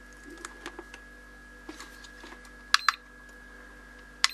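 Soft clicks and taps of crocodile clips and a plastic AAA battery holder being handled, then two sharp button clicks, each with a short high beep, about three seconds in and near the end, from buttons pressed on a Turnigy Accucell 6 hobby battery charger. A faint steady electrical hum runs underneath.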